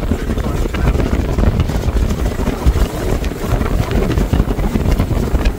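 Wind buffeting the microphone on the deck of a sailing yacht under way: a loud, uneven low rumble.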